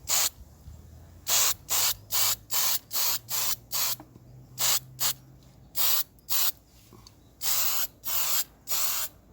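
Spray paint hissing out in short bursts, a couple a second, with a few longer passes near the end: a metallic cast-iron-effect coat being sprayed onto a lawn mower engine's starter mechanism.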